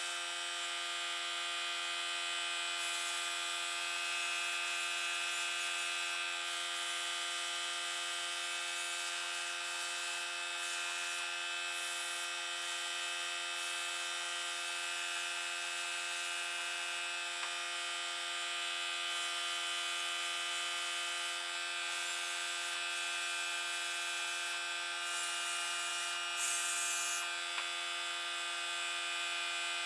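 A small electric motor running steadily with an unchanging whine over a hiss, with a brief louder hiss near the end.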